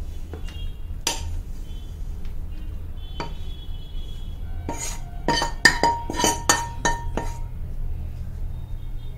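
Steel spoon knocking and scraping against a nonstick kadhai and a metal mould as thick besan barfi mixture is emptied out. A couple of single knocks come first, then a quick run of about eight sharp, ringing metal clinks midway.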